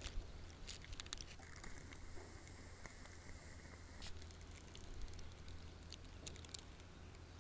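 Faint, scattered soft hoof falls of a grey Arab horse on the sandy arena footing, over a low steady hum.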